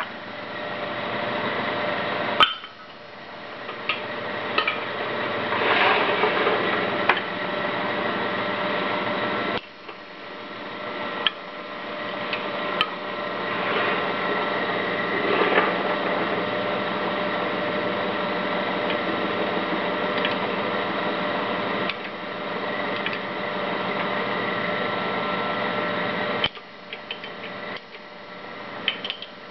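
Homemade wood lathe with an 1100-watt electric motor running, a steady hum with rougher, louder stretches as a tool works the spinning wood. The sound drops suddenly three times and builds back up over a few seconds each time.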